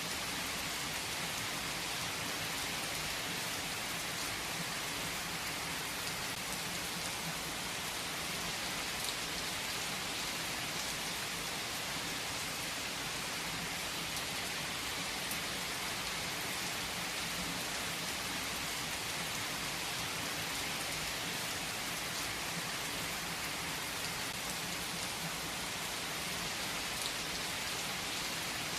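Steady rain falling and pattering on surfaces, a dense even hiss with occasional individual drop ticks.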